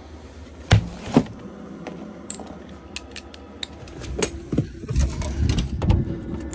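Rummaging in a camper van: two loud knocks about a second in, lighter clicks and metallic clinks, and a denser run of knocks and rattles near the end as cupboard doors and panels are opened and shut.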